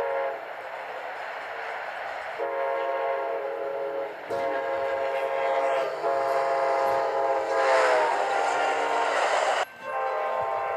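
Amtrak locomotive air horn sounding a chord in a series of long blasts. The last and longest blast drops in pitch as the train passes. It cuts off suddenly near the end, and another horn blast begins at once.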